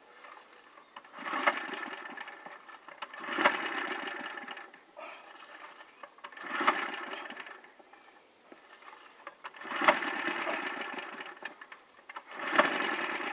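Petrol lawn mower being pull-started five times, about every three seconds: each yank of the recoil cord spins the engine with a short rattling whir that dies away without the engine catching. The engine has a hole blown in the bottom of its sump and will not start.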